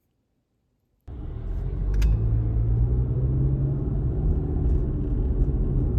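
A steady low rumble that starts suddenly about a second in, after silence.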